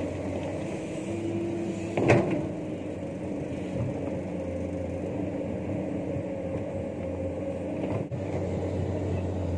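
Excavator's diesel engine running steadily under load as it digs rock. About two seconds in, the bucket gives one sharp, loud scrape against the rock.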